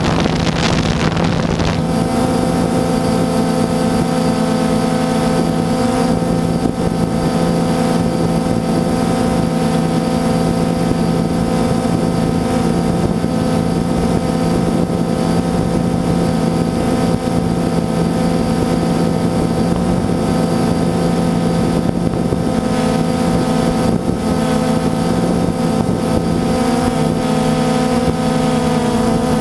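Quadcopter drone in flight, its motors and propellers giving a loud, steady hum of several close tones, recorded by the drone's onboard camera. Wind rushes over the microphone, heaviest in the first couple of seconds.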